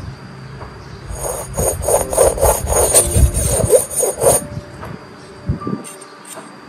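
A steel kitchen knife blade scraped rapidly back and forth across the unglazed foot ring of an upturned ceramic bowl, sharpening the edge. About ten gritty strokes come at roughly three a second, starting about a second in and stopping after some three seconds; a few light handling knocks follow.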